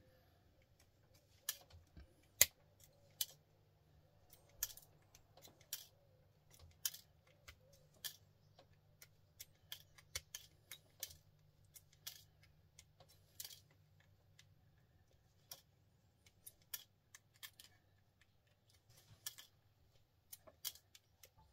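Irregular small sharp clicks and snaps as computer cable connectors are worked apart by hand to pull out their gold-plated pins, over a faint low hum.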